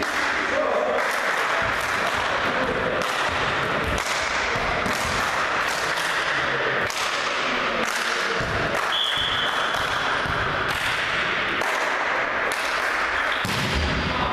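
Steady din of spectators in a sports hall, crossed by frequent short thumps and claps, with one short steady whistle blast lasting about a second around nine seconds in.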